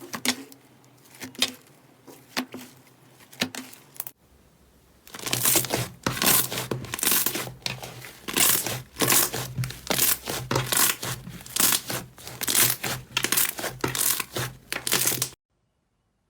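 Slime being worked by hand: a few soft clicks and pokes, then after a cut about ten seconds of rapid, dense crackling and popping as it is squeezed and stretched. It stops suddenly near the end.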